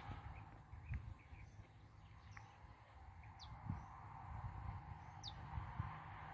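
Faint outdoor birdsong: a few scattered wild-bird chirps, including short high notes that fall in pitch about three and a half and five seconds in, over a steady background hiss, with a few soft low thumps.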